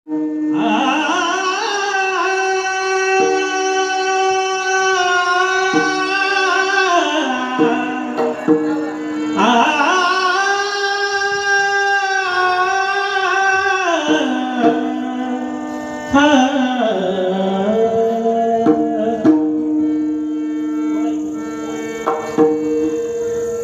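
Male voices singing a Warkari kirtan chal in long, drawn-out phrases, with pakhawaj drum strokes, over a steady held drone. The phrases break off around 7 and 14 seconds in and start again.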